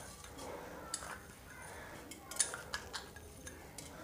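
A few faint clinks of a metal spoon against a glass bowl and a ceramic bowl as sugar is spooned into beaten eggs.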